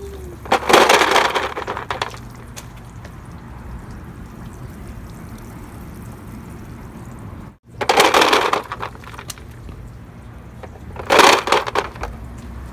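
Toy pickup truck pushed through water with rocks: three short bursts of splashing and rock rattle.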